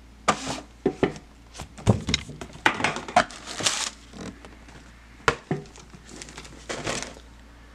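Packaging crinkling and rustling as a pair of Air Jordan 1 High sneakers is lifted out of the shoebox, with sharp knocks as the shoes and box are set down on a hard glossy tabletop, the sharpest about five seconds in.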